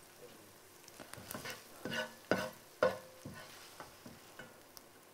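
A spatula scraping and clinking against a frying pan and plate while fried minced meat is scooped out of the pan, over a faint sizzle. There are a series of sharp clinks with brief ringing, the loudest about two to three seconds in.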